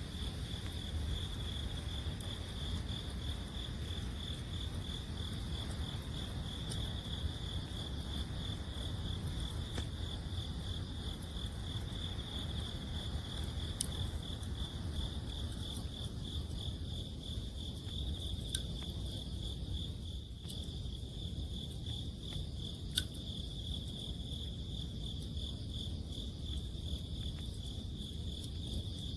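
Crickets trilling steadily in one high, even, finely pulsing chirr, with a few sharp crackles from a wood campfire, the loudest about three-quarters of the way through, over a low rumble.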